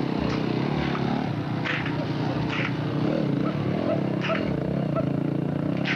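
An engine running steadily, with a few short sharp clatters or knocks over it.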